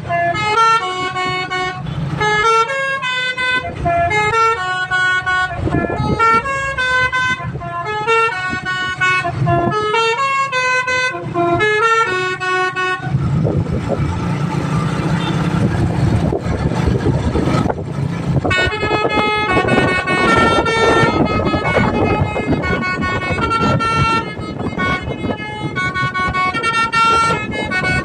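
Basuri multi-tone bus horn playing a tune in stepped notes. About 13 s in the tune breaks off for a few seconds of noise, then plays on.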